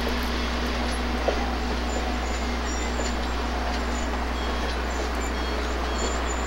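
Steady, even rolling noise from passenger cars passing slowly over the grade crossing, with a constant low hum underneath and one small tick about a second in.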